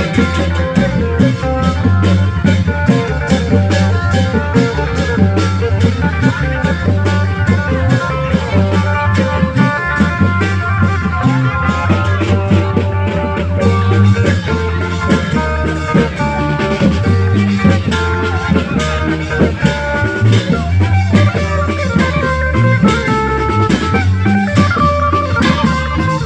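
Thai klong yao long-drum ensemble playing: fast, dense drumming under a plucked-string melody of held notes.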